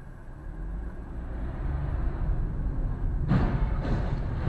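Low road and engine rumble inside a car, growing louder as it pulls away. About three seconds in comes a sudden, louder burst of noise as a collision happens just ahead.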